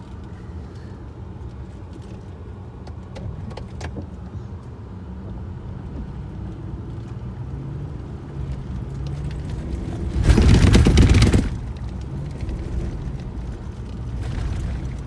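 Ford F-350 pickup truck's engine running steadily under load, its pitch climbing gradually as it pulls. About ten seconds in, a loud rushing noise lasts just over a second, with a fainter one near the end.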